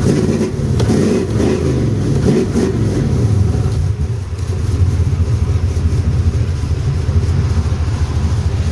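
Old car engine running after a cold start, its pitch wavering for the first few seconds, then settling into a steady idle.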